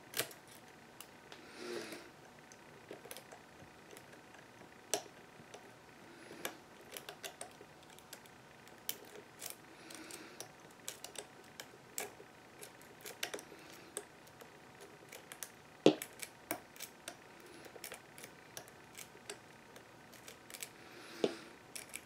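A lock pick and tension wrench working the pins in an American Lock 5530 padlock's brass cylinder: irregular small metallic clicks and ticks, with a louder click about two-thirds of the way in.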